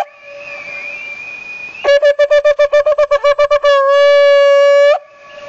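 A shofar (ram's horn) blown: after a short pause, a fast run of short staccato blasts, about nine a second, runs straight into one long steady note with strong overtones, which stops near the end.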